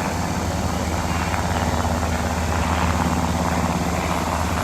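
UH-60 Black Hawk helicopter's twin turbine engines and rotor running with a steady low drone that holds level throughout.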